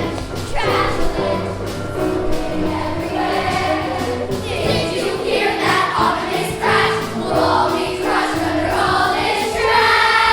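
A song from a children's musical: a group of young voices singing together over an instrumental accompaniment.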